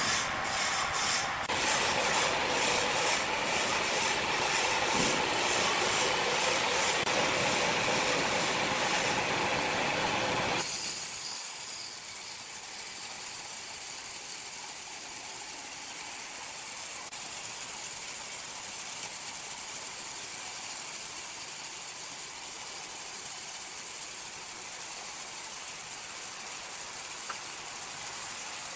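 Sawmill machinery running with a dense mechanical clatter, cutting off abruptly about ten seconds in to a steady high-pitched hiss for the rest.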